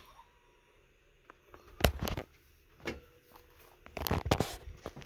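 Sharp knocks and clicks from objects being handled: one loud knock about two seconds in, a lighter click about a second later, and a quick cluster of clicks near the end.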